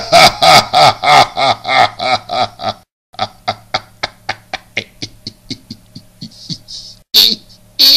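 A voice repeating a short pitched syllable in a steady rhythm, about four times a second, over a low steady hum. After a brief break about three seconds in, the pulses come back faster and fainter and die away, and a short loud vocal burst follows near the end.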